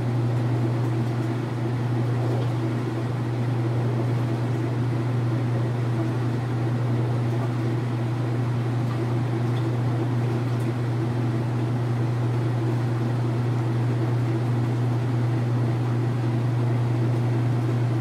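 Kenmore top-loading washing machine in its spin cycle, the basket spinning with a steady low motor hum.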